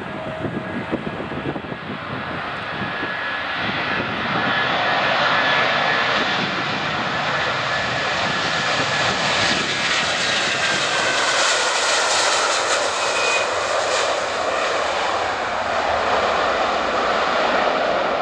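Airbus A330-243's Rolls-Royce Trent 700 turbofans at take-off thrust during the take-off roll and lift-off. The jet noise builds over the first few seconds, then holds loud and steady, with a thin whine that falls in pitch as the aircraft passes.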